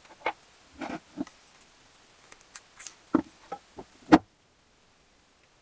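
Small metal parts (a bearing and thin washers or shims) being handled and set down on a wooden workbench: a scatter of light clicks and knocks, the loudest a little past four seconds in.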